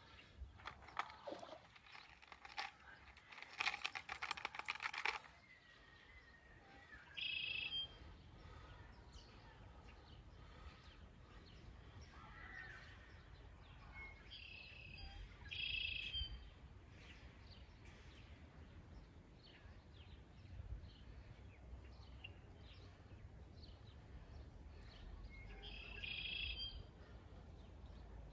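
A bird calling four times, short high calls spaced several seconds apart, over a faint outdoor background. A burst of sharp clicking and rattling fills the first five seconds.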